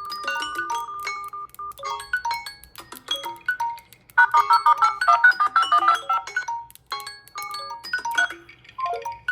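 Samsung Galaxy phone ringtone melodies: short pitched notes in quick phrases, with a fast run of notes about four seconds in and brief pauses between phrases.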